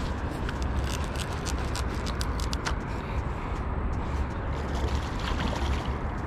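Steady low rumble of wind on the microphone, with irregular sharp clicks and ticks from the fishing reel and rod as a hooked catfish is reeled in to the bank.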